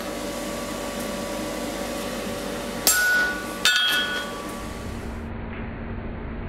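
Two hammer blows on steel at the anvil, about three and four seconds in, each ringing briefly, over a steady mechanical hum.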